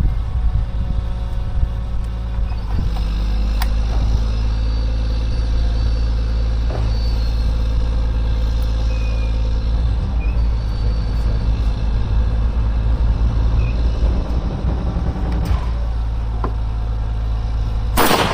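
A steady low rumble runs throughout, then a single loud rifle shot near the end, a .308 fired at a steel target.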